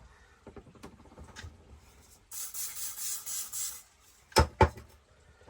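Parts being handled and cleaned on a workbench: a scratchy rustle lasting about a second and a half, then two sharp clicks close together.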